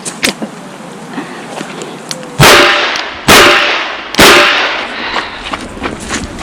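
Three revolver shots from a Chiappa Rhino .38 Special, a little under a second apart, each followed by a fading echo.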